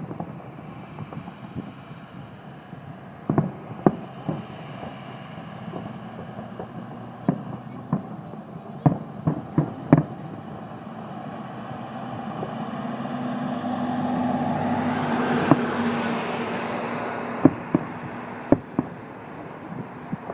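Fireworks shells bursting overhead as sharp bangs at irregular intervals, some in quick clusters. Midway a broad noise with a steady low hum swells up and fades over several seconds.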